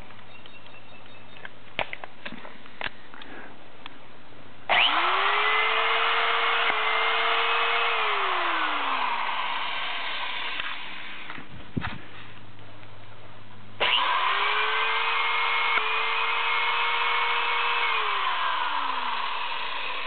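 Ridgid CT400 ProPress electro-hydraulic crimper cycling twice with no pipe in the jaws. Each time its motor spins up quickly, runs steadily, then drops slowly in pitch over a couple of seconds and stops, and the seller judges it to run just fine. A few light handling clicks come before the first cycle.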